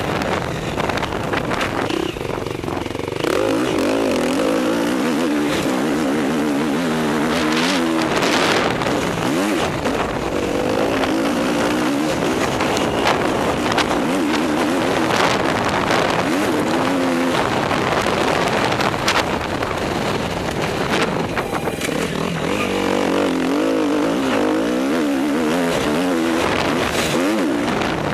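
Motocross dirt bike engine, heard from on board, revving up and down over and over as the rider accelerates and backs off around a dirt track, with a constant rush of noise over it.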